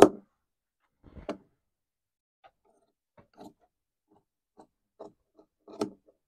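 Large tailor's shears cutting through suiting cloth, the blades closing with short crisp snips: a loud snip at the start, a couple more about a second in, then scattered fainter snips and clicks, and one louder snip near the end.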